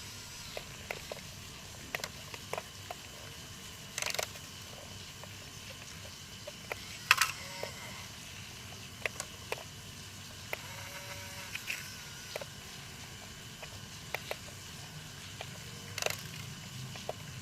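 Remote-controlled toy excavator working: a steady low hum with irregular clicks and knocks of small parts, the sharpest about 7 seconds in.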